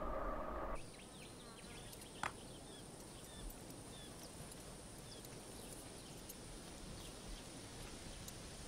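Faint outdoor nature ambience: a steady high insect drone with scattered bird chirps and one sharp knock a couple of seconds in. A held musical tone cuts off abruptly under a second in.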